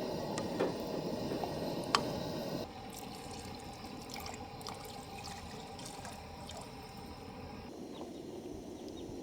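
Liquid sounds from a pot of curry soup being cooked: trickling and bubbling, with a sharp click about two seconds in, then quieter a little before three seconds in.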